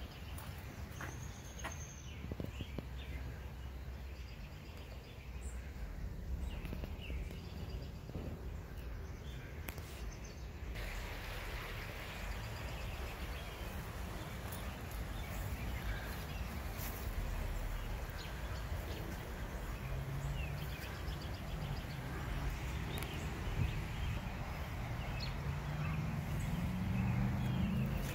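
Outdoor background noise: a steady low rumble with faint scattered bird chirps. In the last several seconds a low hum rises in pitch and grows louder.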